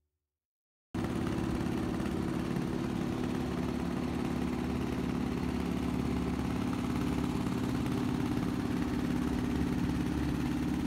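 Small river boat's engine running steadily under way, a low steady drone that cuts in abruptly about a second in.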